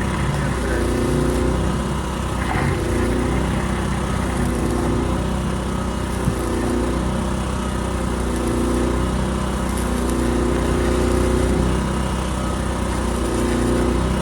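Steady crackling hiss of a welding arc laying a bead, over an engine running at a constant speed, its low hum swelling gently about every two seconds.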